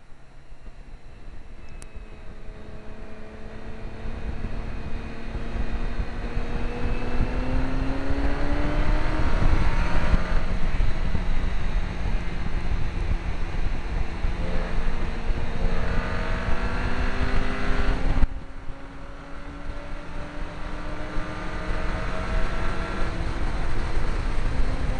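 Mk5 VW Golf GTI's turbocharged four-cylinder engine under hard acceleration, heard from a bumper-mounted camera. The note climbs slowly for several seconds, drops at a shift about ten seconds in, climbs again, falls away sharply about eighteen seconds in, then climbs once more, over steady wind and road rush.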